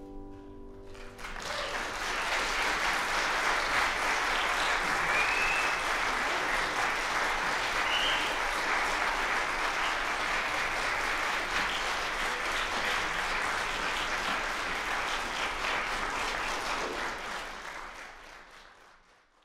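Audience applauding: the clapping rises about a second in, over the last piano chord dying away, holds steady, then fades out near the end.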